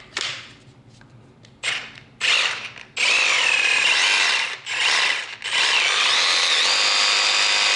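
Kobalt 24-volt one-handed reciprocating saw running free with no load. First come two short trigger blips, then longer runs that speed up and slow down with the trigger, broken twice, and steadier near the end.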